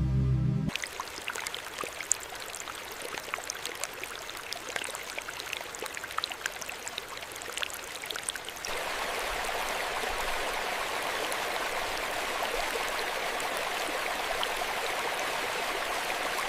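Water trickling and dripping, with scattered sharp splashes, until about halfway through, when it switches to a louder, steady rush of falling water like a small waterfall. Background music cuts off just before the water starts.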